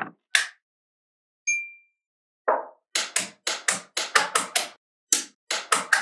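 Small magnetic balls clicking and snapping together one after another. There is a short ringing ping about a second and a half in, then a quick run of clicks in the second half.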